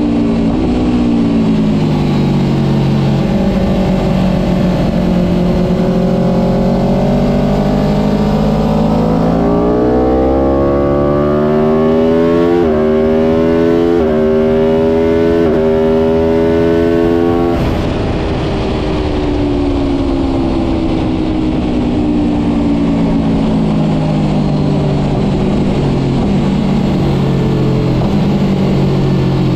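Aprilia RSV4 1000 RF's V4 engine at speed on a lap. The pitch falls at first, then climbs hard under throttle with three quick upshifts, each a sudden drop in pitch. About two-thirds of the way through it drops away suddenly as the throttle closes, and after that it falls and rises again more gently.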